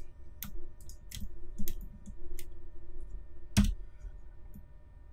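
Irregular clicks of a computer keyboard and mouse as shortcut keys are pressed, about a dozen sharp taps with one louder click about three and a half seconds in.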